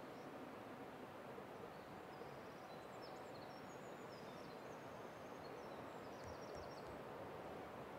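Faint, steady outdoor background hiss, with a small bird giving short, high chirps and trills from about three seconds in until near the end.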